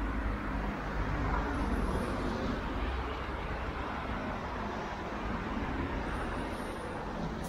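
Road traffic noise: cars driving past on a town street, a steady rumble with no single event standing out.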